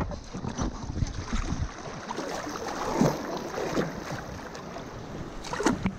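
River water rushing and splashing close to the microphone as an inner tube drifts through shallow riffles, with wind rumbling on the mic in the first second or so and a sharper splash just before the end.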